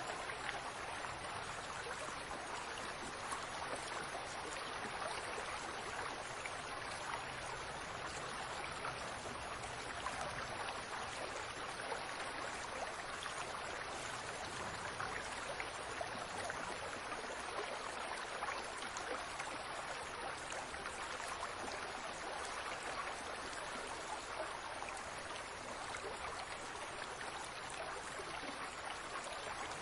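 Water from a fountain falling and splashing steadily, an even rushing patter without pauses.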